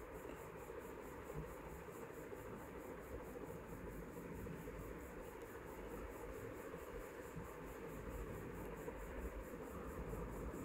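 Faint room tone: a steady low hiss with a rapid, even, high-pitched pulsing.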